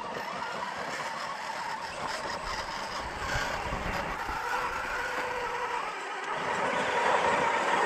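Radio-controlled scale crawler truck driving over rocky dirt, its electric motor and drivetrain running steadily, getting louder near the end as it comes up close.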